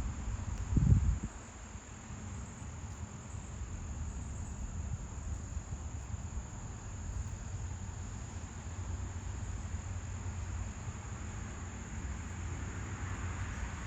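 Steady high-pitched insect chorus holding one constant tone, over a low rumble. A brief low thump comes about a second in.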